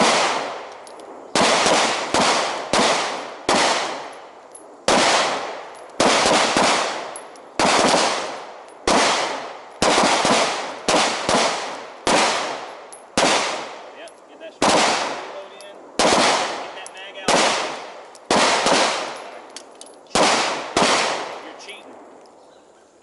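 Pistol fire on a firing line: about two dozen sharp shots at an uneven pace, roughly one a second with some quick pairs, each one dying away in an echo before the next.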